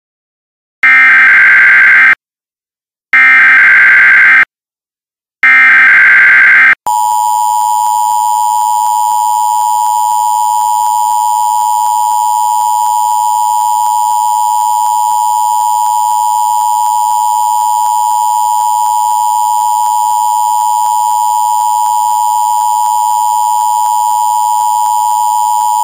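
Emergency Alert System signal: three short bursts of the screeching SAME digital header tones, about a second apart. About 7 s in, the steady two-tone EAS attention signal starts and holds.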